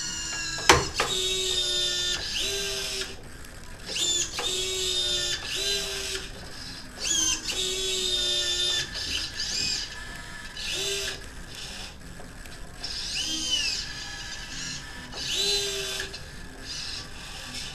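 The electric joint motor in a homemade humanoid robot's right knee whines in short, stop-start bursts as the knee pitches back and forth under manual control. Its pitch glides up and down as each jerky move starts and stops. There is a sharp click about a second in.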